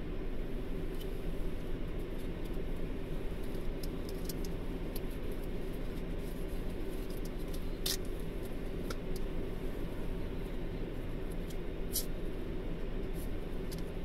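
Car engine idling steadily, heard from inside the cabin of the stationary car, with a few small clicks and ticks here and there; the sharpest come about eight and twelve seconds in.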